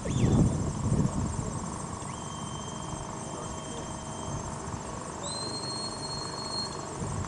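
Two long notes on a herding whistle, each sliding up and then held steady: the first about two seconds in, the second, higher one about five seconds in. A brief low rumble in the first second is the loudest sound, and insects trill steadily underneath.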